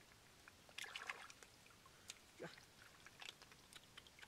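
Faint sloshing and scattered small clicks of hands groping through shallow floodwater and wet leaf litter for snails, a little louder about a second in.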